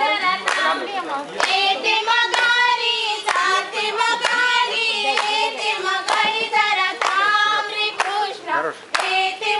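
A group of women singing a folk song together while clapping their hands in time, about one clap a second.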